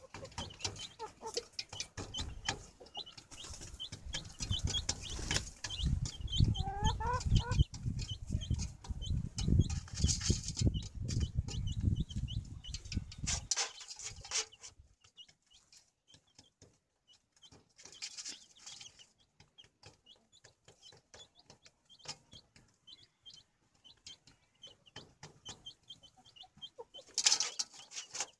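Chicks peeping over and over in short, high cheeps, with a hen clucking among them. A low rumble fills the first half and stops about halfway through.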